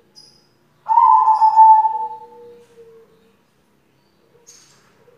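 White zebra dove (perkutut) cooing: one loud, slightly falling coo phrase about a second in, followed by softer low coos.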